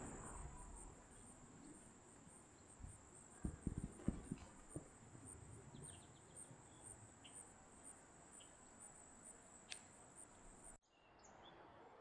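Faint, steady, high-pitched insect trill, pulsing evenly, which cuts off suddenly near the end. A few soft low thumps come about three to four seconds in.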